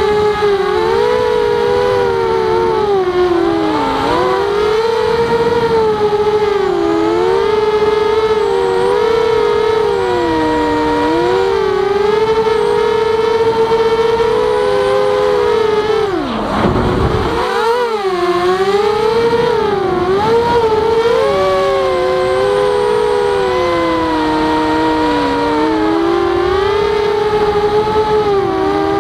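Walkera Rodeo FPV quadcopter's brushless motors and propellers whining, the pitch rising and falling constantly with the throttle. A little over halfway through the whine dips briefly under a short rush of noise before picking up again.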